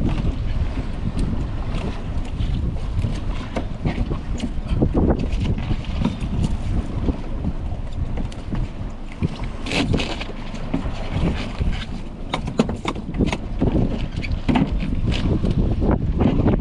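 Wind buffeting the microphone on a small open boat in choppy sea, a rough, uneven rumble with the wash of the water, broken by scattered short knocks.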